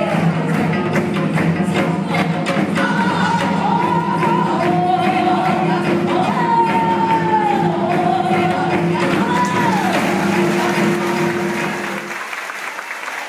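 Live band music: a woman's voice singing long, sliding notes over a steady low drone, with drum strikes early on. The music stops about twelve seconds in and audience applause begins.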